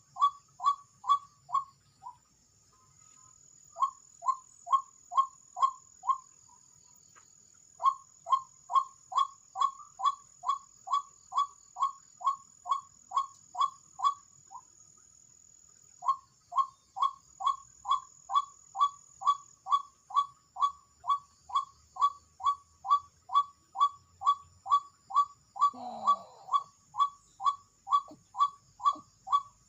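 White-breasted waterhen's ruak-ruak call repeated, about three calls a second in long runs with short pauses, the call used to lure waterhens to a trap. A steady high insect buzz runs beneath it, and a different, lower falling call comes in briefly near the end.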